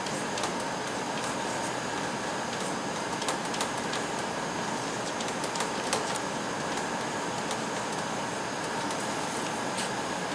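Chalk tapping and scraping on a blackboard as words are written, a scatter of short sharp clicks over a steady background hiss.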